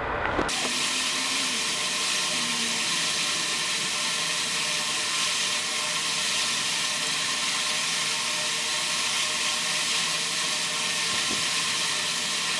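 Steady hiss of background noise with faint humming tones underneath, starting abruptly about half a second in and holding an even level.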